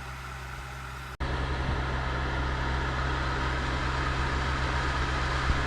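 Portable air conditioner running on maximum fan, a steady rushing fan noise over a low compressor hum. It drops out briefly about a second in and then continues louder.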